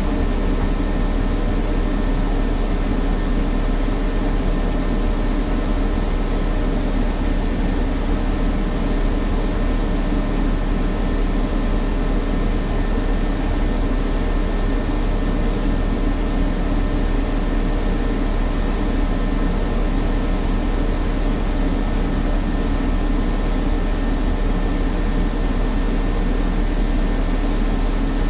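Old bus driving, heard from inside the passenger cabin: a steady low engine and road rumble that does not change.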